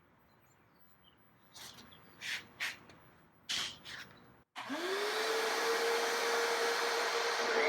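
A few brief knocks and rustles of handling, then an electric motor starts about four and a half seconds in. It spins up within a fraction of a second and runs on with a steady whine over a rushing of air.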